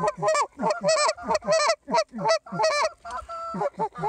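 Canada goose calling, loud and close: a quick, even run of honks and clucks, about three a second, each breaking from a low note to a high one, with one held note around three seconds in. It is the hunters' goose call working a flock in to land.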